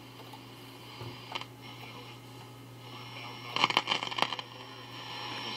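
Silvertone solid-state clock radio's speaker while the dial is tuned across the AM band, with a steady low hum underneath. About three and a half seconds in, a burst of crackling static comes in between stations.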